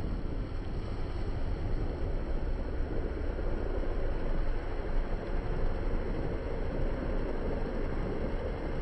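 Wind buffeting a phone's microphone: a steady, deep rushing noise with no distinct events.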